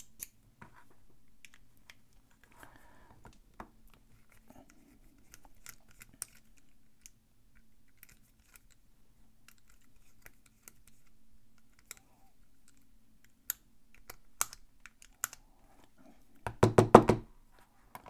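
Small clicks, taps and scrapes of a Phillips screwdriver working a screw out of the bottom of a fingerprint padlock's metal-and-plastic body, with a quick run of louder clicks and knocks near the end.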